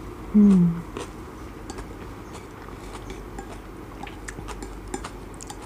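A short closed-mouth 'mmm' hum, falling in pitch, about half a second in. It is followed by soft chewing of noodles and light, scattered clicks of wooden chopsticks against a ceramic plate.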